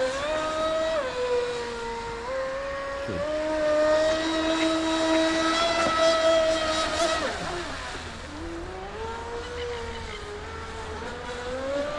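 Electric RC speedboat's brushless motor whining at high speed. The pitch holds steady for several seconds, drops sharply about seven seconds in, then climbs again.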